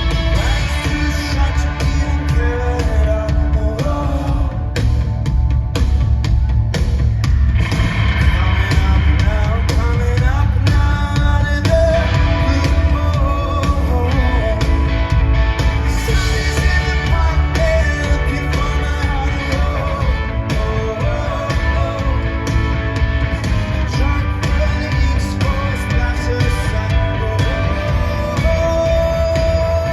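Rock band playing live, with a lead voice singing over guitar and a heavy, booming bass low end.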